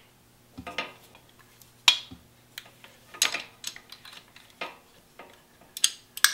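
About seven sharp metallic clicks and clinks at irregular intervals, from a torque wrench and socket being worked on the alternator belt-tensioner nut of a BMW R1100RT while setting belt tension.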